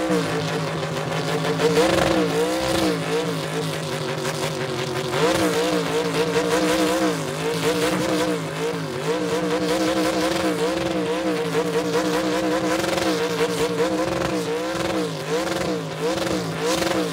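Car engine held at high revs during a burnout, its pitch bouncing up and down about once a second, over the noise of tires spinning against the pavement.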